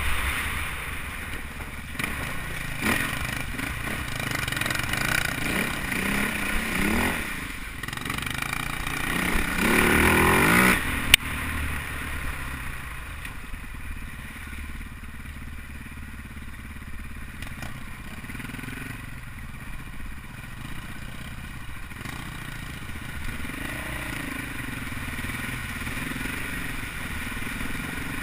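Husaberg FX450 dirt bike's single-cylinder four-stroke engine running under way, revving up with a rising pitch twice in the first half. A sharp click comes about eleven seconds in, after which the engine runs quieter and steadier.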